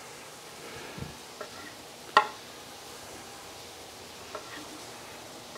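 Chef's knife cutting cooked sirloin steak into chunks on a wooden cutting board: a few knocks of the blade against the board, the sharpest about two seconds in, over a faint steady hiss.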